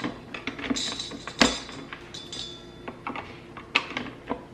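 Metal beaters clinking and clicking as they are handled and snapped into an electric mixer: scattered sharp clicks with brief metallic ringing, the loudest about a second and a half in.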